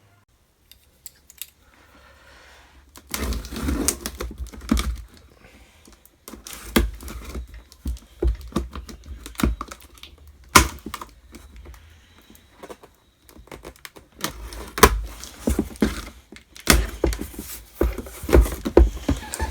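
Cardboard box and packaging being handled and opened by hand: an irregular run of sharp clicks, knocks and rustles starting about three seconds in.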